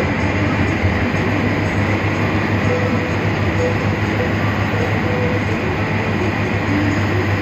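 Steady engine and road noise of a moving bus, heard from inside the cabin, with a constant low hum under it.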